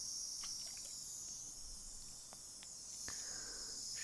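Fine-mist spray bottle hissing steadily, easing off after about a second and a half, with a few faint clicks.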